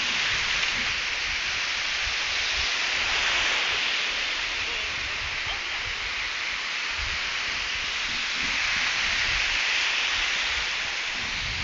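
Ocean surf washing up the beach: a steady rush of breaking waves and foam that swells and eases every few seconds, with faint irregular low rumbles underneath.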